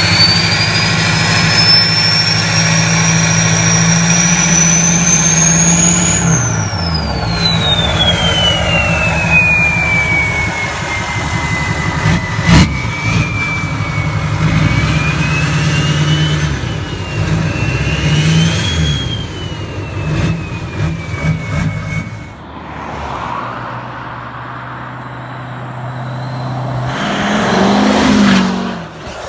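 2005 LLY Duramax 6.6-litre V8 turbodiesel through a 5-inch straight-pipe exhaust, revved while standing, with a high turbo whine that climbs for about six seconds, falls away, then rises and drops again with shorter revs. Near the end the truck drives past, swelling loud with its pitch dropping as it goes by.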